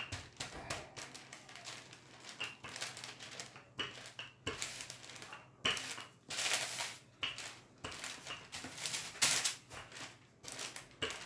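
Wooden rolling pin pushed back and forth over baking paper laid on scone dough, the paper rustling and crinkling in irregular strokes.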